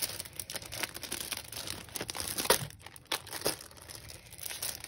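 Clear plastic packaging sleeve and the paper sheets inside it crinkling as they are handled, in irregular crackles with a few sharper ones about halfway through.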